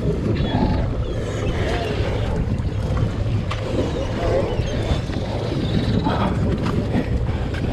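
Steady low rumble of a sportfishing boat's engine, mixed with wind on the microphone. Faint voices come from elsewhere on deck.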